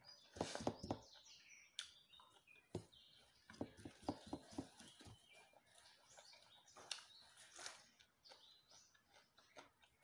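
Faint bird chirps in the background, over short clicks and soft mouth sounds of someone eating.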